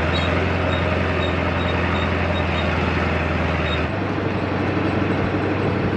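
Ford F-350's 7.3 Powerstroke turbo-diesel V8 running at a slow crawl over a rocky dirt track, with a steady low drone. About four seconds in the sound changes suddenly: the drone drops and a rougher, rattling running sound takes over.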